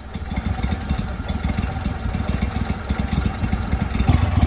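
Go Devil 40 HP EFI surface-drive motor idling, with a steady run of rapid, even firing pulses; it grows a little louder near the end.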